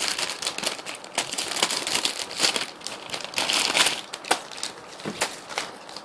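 Plastic packaging from a model kit crinkling and rustling as it is handled, with irregular sharp clicks and crackles, quieter near the end.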